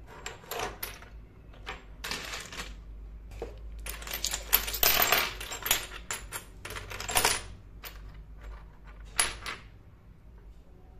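Miniature ceramic pots and dishes clinking and clattering against each other as they are picked up and set down among a pile of tiny ceramic tableware. It comes in several bursts, busiest about four to six seconds in.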